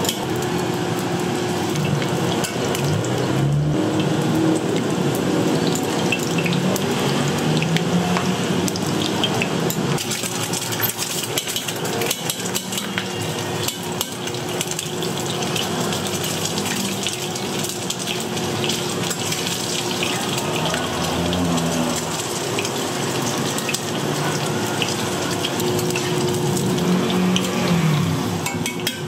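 Steady hissing and splashing at a street-food cooking stall, with scattered clinks of cookware and utensils over a low steady hum.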